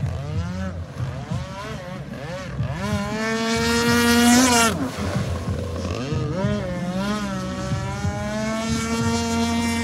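Pro Boat Shockwave 26 RC boat's 26cc two-stroke gas engine running at high revs, its pitch rising and falling as the throttle changes. It is loudest and highest about four seconds in, then its pitch falls sharply.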